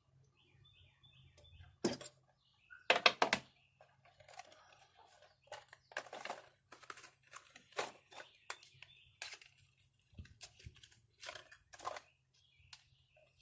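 Irregular clicks and knocks of hand tools and parts being handled at an engine bay while spark plugs go back in, loudest in a quick cluster about three seconds in. A bird chirps briefly near the start.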